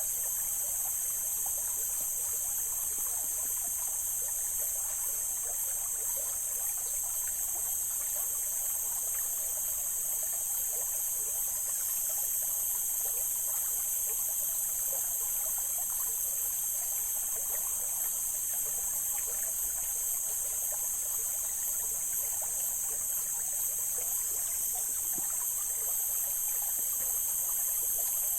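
Mountain stream water flowing and trickling steadily over rocks, under a constant high-pitched hiss.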